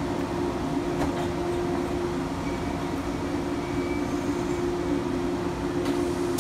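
Steady electric hum with a couple of held tones from electric trains standing at the platform with their onboard equipment running.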